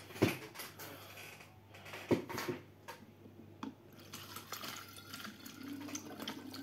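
A few light knocks as a plastic funnel and glass jars are handled, then from about four seconds in a steady trickle of liquid pouring through a plastic mesh-strainer funnel into a glass jar.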